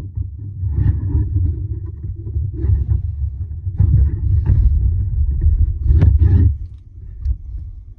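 Low rumbling handling noise with a few sharp clicks and knocks as small RC car parts are worked by hand close to the microphone. The rumble fades out about two-thirds of the way through.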